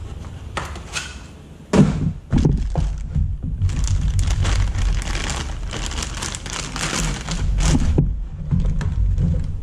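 Cardboard packaging handled with a thump about two seconds in, then a graphics card's plastic anti-static bag crinkling at length as the card is pulled out and unwrapped.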